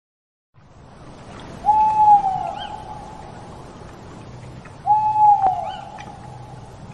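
An owl hooting twice, about three seconds apart, each hoot a single held note that drops at the end, with faint higher bird chirps behind.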